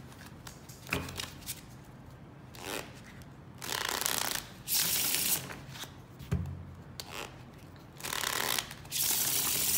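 A deck of playing cards being riffle-shuffled by hand: two rounds of quick rushing riffles, one about four seconds in and another near the end. Between them come a few light knocks as the deck is handled on the table.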